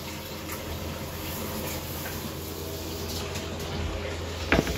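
Oil sizzling steadily as pieces of food deep-fry in a wok, over a constant low hum. There is one sharp metallic knock near the end.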